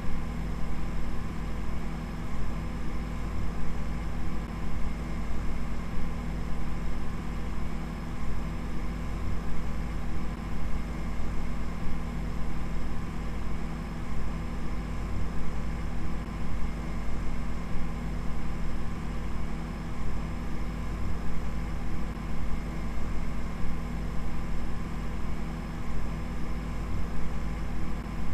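A steady, dense droning noise with several held tones, heaviest in the bass and wavering in loudness.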